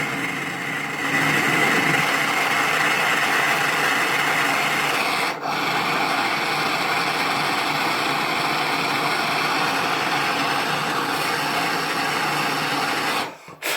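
Continuous abrasive rubbing against the metal recess of a motorcycle fuel cut-off valve, cleaning out the last of the old rubber diaphragm so the seat is ready for the new one. The steady scraping breaks briefly about five seconds in and stops just before the end.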